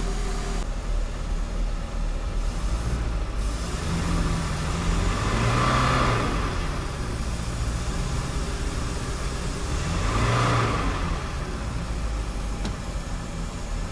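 MerCruiser 5.0 MPI fuel-injected V8 marine engine running out of the water, freshly refilled with oil after an oil change. A steady drone that swells and falls back twice, about six and ten seconds in.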